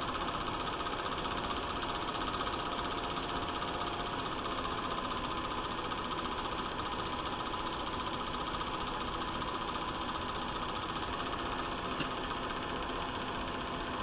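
9.5mm cine projector running, a steady motor whirr with the fast, even chatter of the film transport. A single brief click about twelve seconds in.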